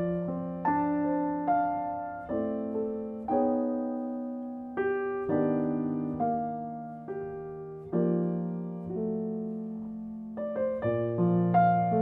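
Background solo piano music: slow notes and chords, each struck and left to fade, with quicker notes near the end.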